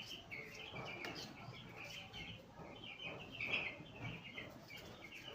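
A flock of poultry chicks cheeping continuously in many overlapping high chirps.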